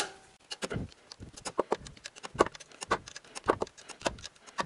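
Socket wrench on a 14 mm socket working an alternator mounting bolt loose: a string of short metallic clicks, unevenly spaced, a few a second.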